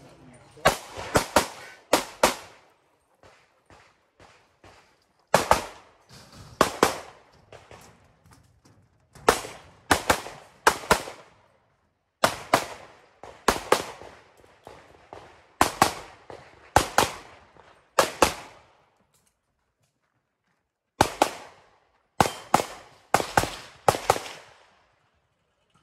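Pistol fire on a timed practical-shooting stage: shots in quick pairs and strings of three or four, the groups separated by pauses of one to three seconds, the last shots a little before the end.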